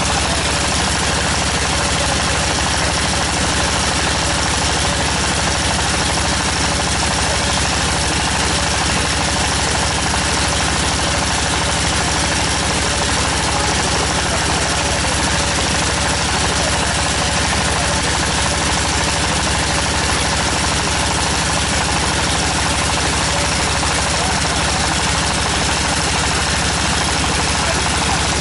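Tractor-mounted water well drilling rig running steadily, its engine holding a constant even note with no change in speed.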